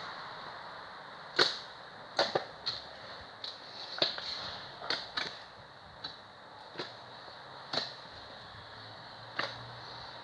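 Slime being squeezed and poked, giving sharp pops and clicks at irregular intervals.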